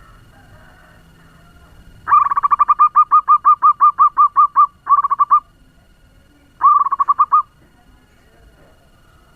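Zebra dove (perkutut) calling in the fast, rapid-fire style prized in lure birds: a long run of quick staccato cooing notes, about five a second, then two shorter quick bursts.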